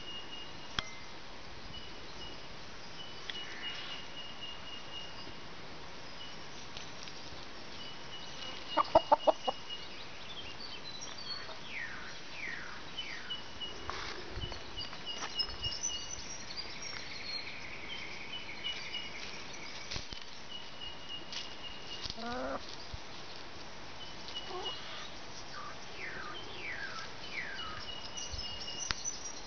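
Domestic hens clucking as they forage, with a brief loud run of clucks about nine seconds in and a softer one a little after twenty seconds. Wild birds call in the background with short, high repeated notes and falling whistles.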